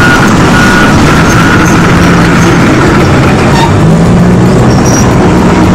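A large vehicle engine running steadily and loudly at a constant speed.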